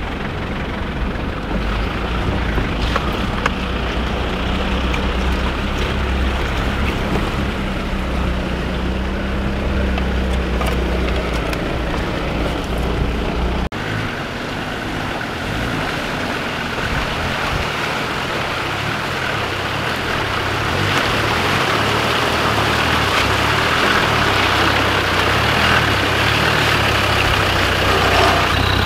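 A 4x4's engine heard from inside the cab as it wades along a flooded track, a steady low drone. About halfway through, after a cut, a Land Rover Defender 90 is heard driving through the water: engine and splashing grow louder as it approaches.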